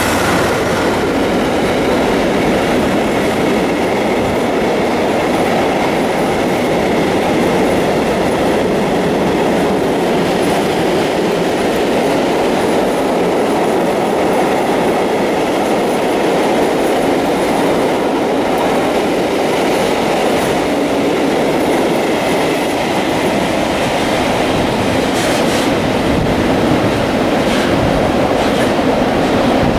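Long freight train of covered hopper wagons rolling past close by: a loud, steady rumble and clatter of steel wheels on the rails, with a few sharper clacks near the end.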